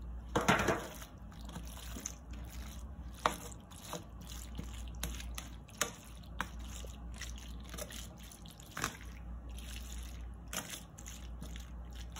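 Wet cooked elbow macaroni sliding out of a container into a foil pan in one soft, wet rush about half a second in. Then a metal serving spoon spreads it, with scattered light clicks and squishes in the pan.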